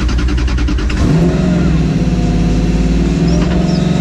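Optimus rally-raid car's engine running just after starting, heard from inside the cockpit. It pulses evenly for about a second, then shifts to a steadier, higher note as the revs come up.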